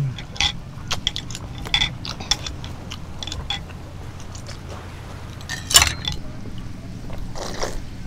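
Close-miked mouth sounds of someone eating soy-marinated raw salmon: wet chewing with quick lip smacks and clicks, and one louder smack about three quarters of the way through.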